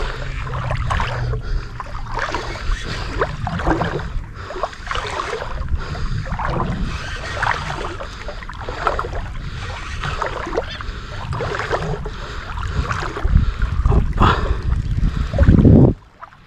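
Shallow marsh water sloshing and splashing in repeated strokes, with wind rumbling on the microphone. It grows louder near the end, then cuts off suddenly.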